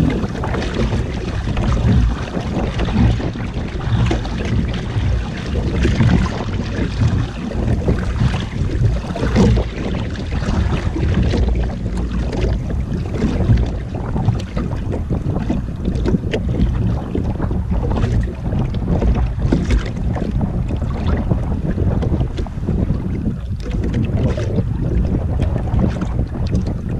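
Wind buffeting the microphone, with sea water sloshing and splashing against the hull of a small outrigger boat: a loud, uneven rushing noise.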